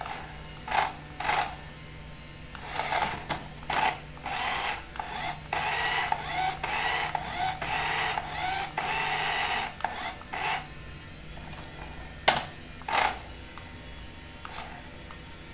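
Small electric drive motor and gears of a remote-control toy car whirring in short bursts, with one long run of about four seconds in the middle while the car presses against a cardboard ramp. A single sharp knock comes about twelve seconds in.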